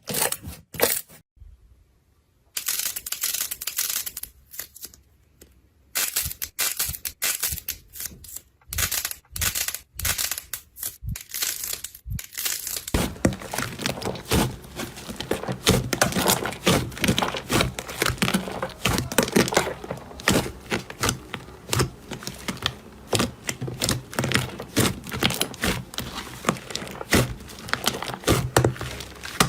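Slime being stretched, squeezed and poked by hand, giving sharp crackling and popping clicks. The clicks come in scattered runs with short pauses at first, then after about 13 seconds turn dense and continuous.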